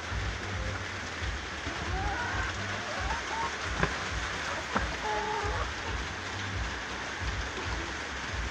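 Steady hiss of rain falling on a corrugated metal roof, over an uneven low rumble. A few faint short chirps and two sharp clicks about a second apart come near the middle.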